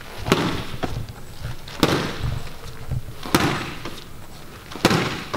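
Four left jabs landing with a sharp smack, evenly spaced about a second and a half apart.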